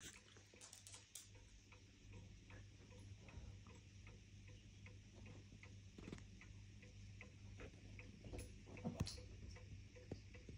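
Planchon French mantel clock ticking in a quick, even rhythm, faint and close. A few louder knocks break in, the loudest about nine seconds in.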